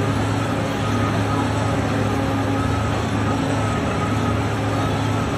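Engine of heavy construction machinery running steadily, a low hum with a faint wavering whine above it.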